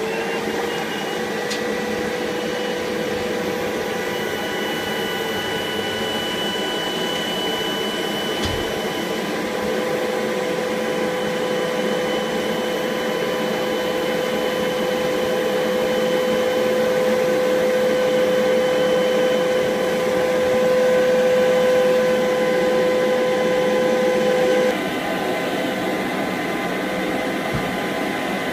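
Domestic vacuum cleaner running steadily, its hose nozzle sealed into plastic film wrapped around a foam cushion, sucking the air out so the film pulls tight and compresses the foam. The motor's whine grows slightly louder as the airflow is choked, then near the end it drops suddenly and the sound becomes quieter.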